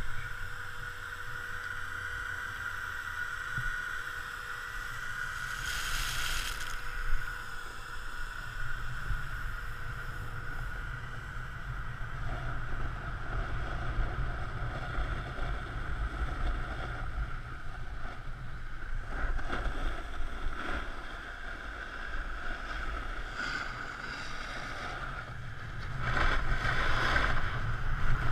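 Snowboard sliding over packed snow, with wind rumbling on the microphone. There is a brief hissing scrape about six seconds in and louder scraping near the end.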